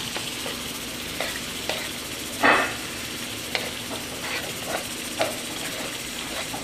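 A spoon stirring pasta in creamy broth in a steaming pot on the stove, with short scrapes and knocks against the pot about once a second, the loudest about two and a half seconds in, over a steady hiss of the hot pots.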